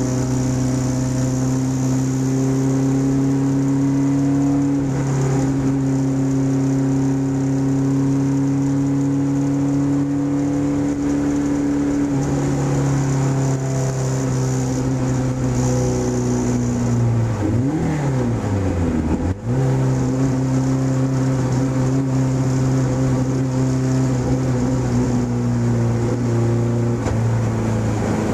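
Ford Pinto race car's engine heard from inside the cabin, running hard at high, steady revs. About two-thirds of the way through, the revs swing down and back up and the sound breaks off for a moment, then the engine pulls steadily again.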